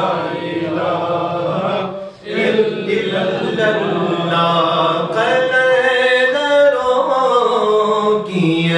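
A man singing a devotional Urdu naat solo into a microphone, in long, drawn-out chanted lines over a low steady hum. He pauses for breath about two seconds in.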